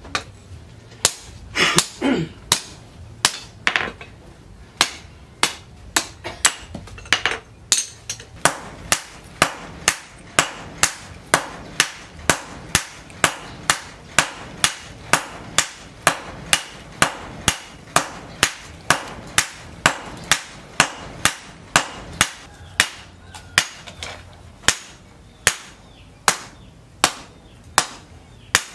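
Hand hammer striking red-hot leaf-spring steel on a steel post anvil, forging a machete blade: a steady run of sharp metallic blows, about two a second, more irregular in the first few seconds.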